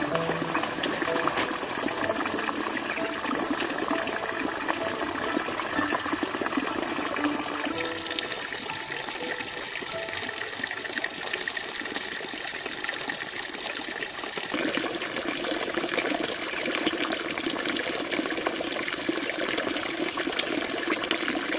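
Water rushing and gushing steadily, with faint high tones coming and going over it; the sound changes about two-thirds of the way through.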